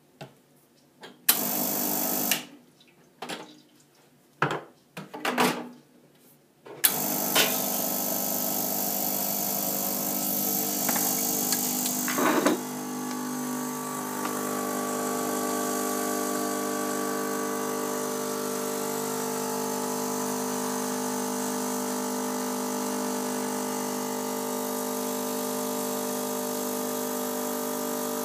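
A Rancilio Silvia espresso machine's vibratory pump runs steadily while pulling a shot of espresso, starting about seven seconds in. Its sound changes about twelve seconds in, with a sharp sound and then a steadier hum. Before the pump starts there is a brief loud burst and a few clunks and clicks.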